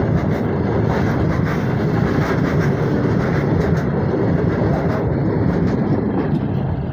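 Freight train wagons passing at close range: a steady loud rumble of steel wheels rolling on the rails, with sharp clacks as the wheels cross rail joints, the clacks thinning out in the last couple of seconds.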